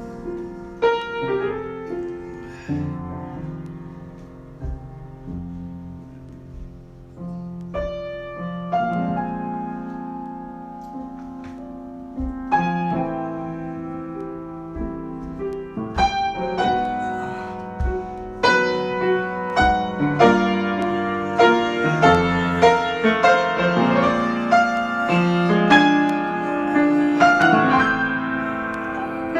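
Solo piano improvisation: held chords and slow melody at first, growing busier and louder with more struck notes from about halfway through.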